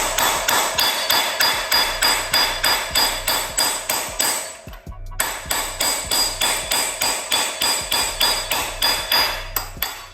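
Hammer tapping on a socket to drive a chilled spigot (pilot) bearing into the engine's crankshaft: rapid, even metallic strikes, about four a second, with a short pause about halfway, until the bearing seats.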